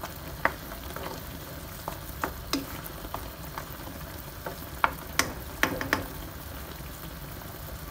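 Pork adobo sauce bubbling and sizzling in a pot as it boils down, with a metal spoon stirring through it and knocking against the pot in scattered clicks, most of them around the middle and latter part.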